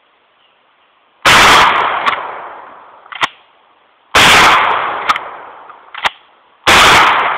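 Mossberg 600AT New Haven 12-gauge pump shotgun firing 2¾-inch 00 buckshot: three loud blasts about three and two and a half seconds apart, each ringing away slowly. Between shots the pump slide clacks twice as it is racked back and forward.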